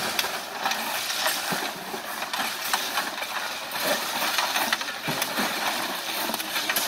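Gravel being raked out of a truck bed with hoes: a steady rattle of stones sliding and clattering onto a pile, with many sharp clacks of metal tools on stone.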